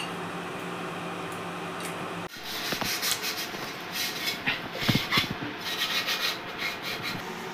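Hands scrubbing and rubbing the outside of a steel cooking pot in irregular strokes. A steady low hum comes first, for about two seconds.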